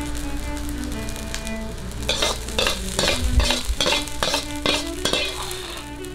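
Fried rice sizzling in a hot wok, with a metal wok spatula scraping and tossing it in quick strokes from about two seconds in, roughly two to three a second.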